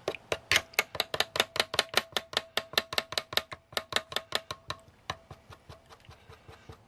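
A spoon striking and stirring in an aluminium pot, rapid even knocks about six a second with a slight metallic ring, mashing lumpy condensed cream of mushroom soup into milk; the strokes grow fainter after about five seconds.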